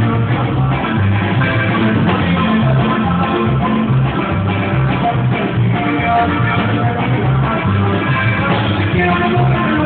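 Norteño band playing a corrido medley, with a pulsing bass line under held melody notes.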